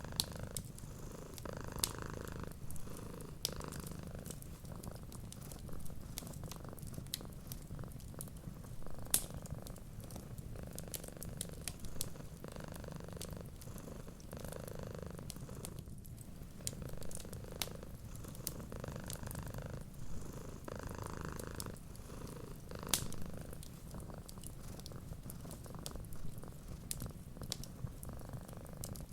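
Cat purring steadily, swelling and easing with each breath every second or two, with the sharp crackles and pops of a wood fire scattered throughout.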